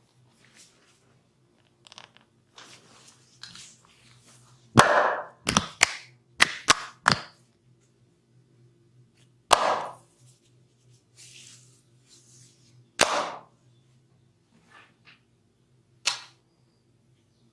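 Sharp cracking slaps of hands on bare skin during a barber's massage: a quick run of about six around five to seven seconds in, then single cracks about ten, thirteen and sixteen seconds in.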